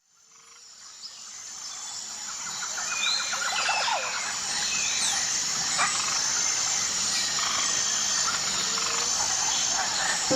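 Outdoor nature ambience fading in over the first few seconds: birds chirping over a steady, high insect drone.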